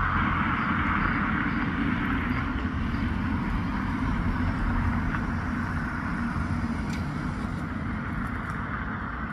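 Steady outdoor background noise: a low rumble with an even hiss, no distinct events.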